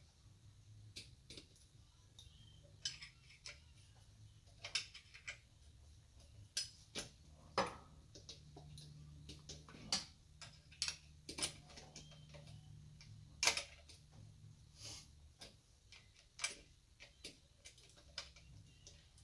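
Irregular metallic clicks and taps of a hand wrench working the ignition coil's mounting bolt tight on the engine block, over a faint steady low hum.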